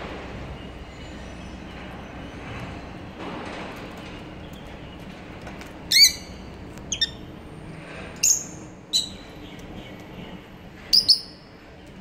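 Rosy-faced lovebirds giving short, shrill chirps: about six sharp calls in the second half, the first the loudest, over a steady low background hum.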